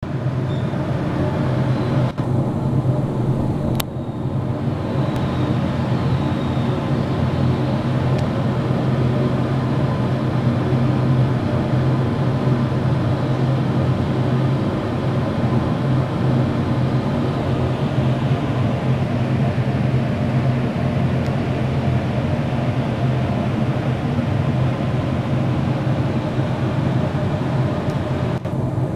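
A steady low mechanical hum that does not change, with a couple of faint clicks about two and four seconds in.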